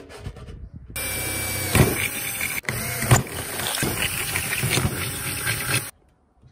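Makita cordless drill with a 4 mm bit drilling through a thin stainless steel tray: the motor runs under load with irregular sharp knocks. It starts about a second in and cuts off suddenly near the end.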